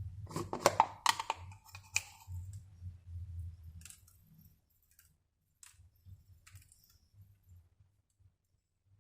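A quick run of light clicks and clatter from small hard objects being handled, densest in the first two seconds, then a few scattered single taps, over a low hum that fades out about four seconds in.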